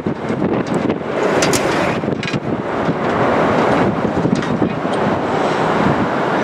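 Steady loud rush of wind buffeting the microphone.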